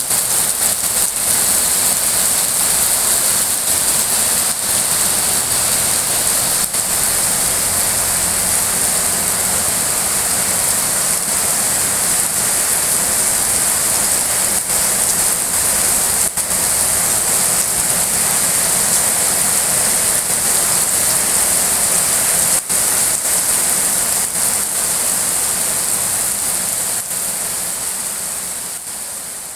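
Heavy rain falling steadily, a dense even hiss that fades away over the last few seconds.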